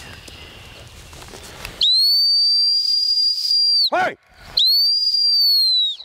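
Two long, steady, high-pitched blasts of a dog-training whistle, about two seconds and a second and a half long, given as the stop signal to a gun dog running out on a line. A short falling sound comes between the blasts.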